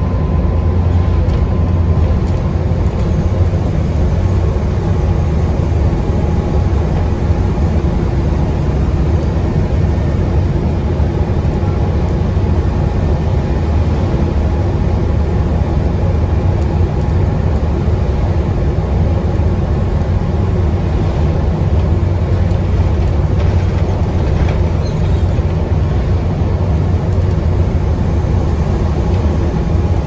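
Diesel bus engine and road noise heard from inside the moving bus: a steady low drone. The uploader says the bus sounds quite tired.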